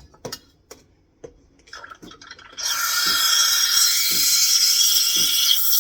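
A few light clicks, then about two and a half seconds in, an espresso machine's steam wand opens with a sudden loud, steady hiss into the milk. It is the paper-tearing sound of the wand frothing the milk. A faint low pulse repeats about once a second beneath the hiss.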